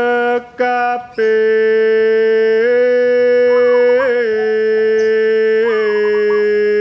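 A man singing a Javanese kidung in tembang style, holding one long, drawn-out note with brief breaks near the start and small slides in pitch. Faint short warbling coos of a perkutut (zebra dove) sound behind the voice a few times.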